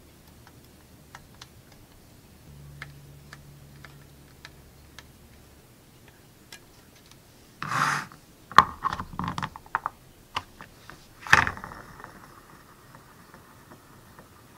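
A plastic model car body and a round painting stand handled on a cutting mat: scattered small clicks and taps, a loud scraping rub about eight seconds in, a quick run of taps, another scrape about three seconds later, then a faint steady whir as the stand spins the body.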